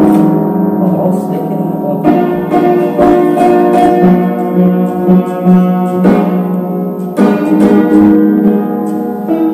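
An old upright piano being played: chords struck about two, six and seven seconds in and left ringing, with no real tune.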